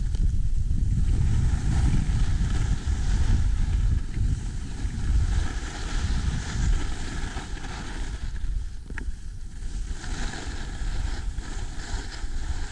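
Wind rushing over a skier's action-camera microphone during a fast downhill run, a heavy low buffeting, with a steady hiss of skis sliding on groomed snow. It eases slightly about four seconds in.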